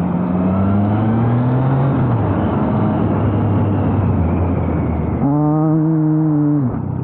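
Triumph Trident 660's inline three-cylinder engine running under way, its pitch rising over the first two seconds, then dropping and holding lower and steady. About five seconds in, a loud steady tone cuts in and stops abruptly a second and a half later.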